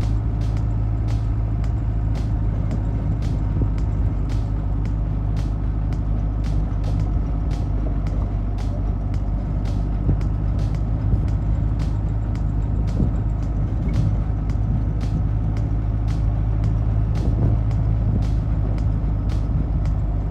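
Motor vehicle engine running with a steady low drone, with a light tick about twice a second.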